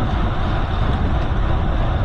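Wind rushing over the microphone of a camera on a moving bicycle: a steady, loud low rumble that buffets unevenly, with no separate events standing out.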